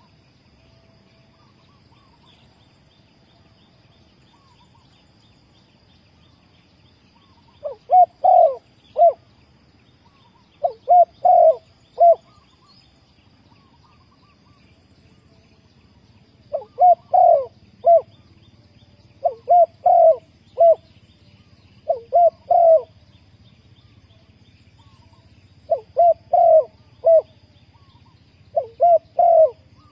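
Spotted dove cooing: short phrases of three or four notes, repeated every two to three seconds after about seven seconds without calls.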